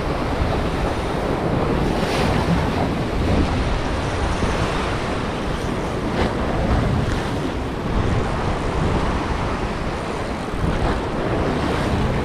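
Sea waves washing and breaking, with wind buffeting the microphone.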